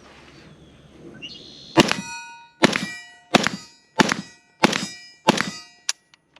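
Six semi-automatic shots from a PSA AK-105 rifle in 5.45x39, about one every two-thirds of a second, each followed by the clang of a steel target ringing as it is hit.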